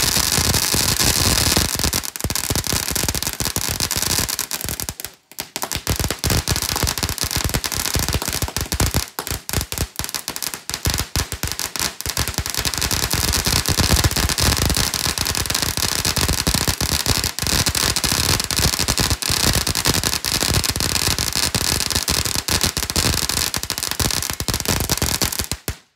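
Ground firework fountain spraying sparks: a loud continuous hiss packed with crackling. It dips briefly about five seconds in and cuts off abruptly near the end.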